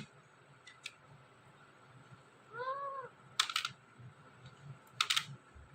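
Pet talking parrot between words, giving one short soft call that rises and falls in pitch about two and a half seconds in, then two brief harsh rasping clicks, about a second and a half apart.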